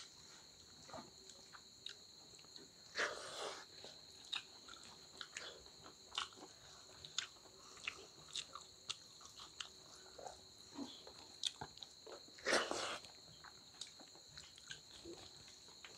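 Close-miked eating by hand: wet chewing and lip-smacking of rice and dal, with fingers mixing rice on a steel plate giving small clicks. Two louder, longer slurping sounds come about three seconds in and about twelve seconds in.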